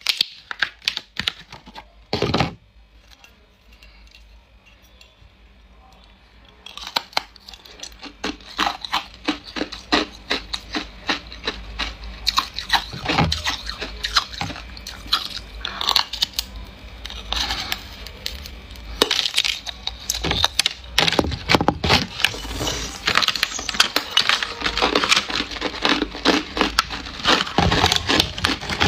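Hard ice being bitten and chewed close to the microphone: a dense run of sharp crunches and cracks that starts about seven seconds in and keeps going. Before that, a few clicks and one heavy knock as the ice block is handled in its glass dish, then a quiet few seconds.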